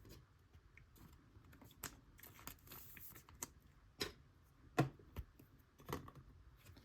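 Trading cards being handled and flipped through: scattered light clicks and taps, a few sharper ones around four to six seconds in.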